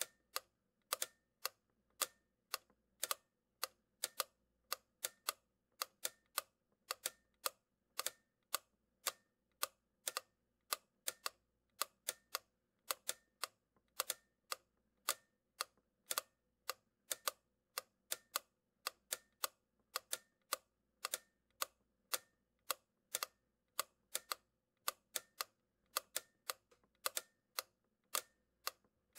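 A long run of sharp mechanical clicks, about two to three a second, with silence between them, like ticking or typewriter keys.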